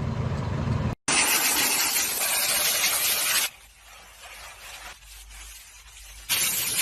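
Handheld steam cleaner hissing in two long blasts, with a much quieter stretch of a cloth rubbing between them. About the first second holds the low rumble of a truck, cut off suddenly.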